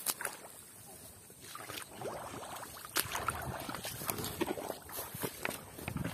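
Rubber boots wading through shallow paddy water and mud, sloshing and squelching in irregular steps that start about two seconds in.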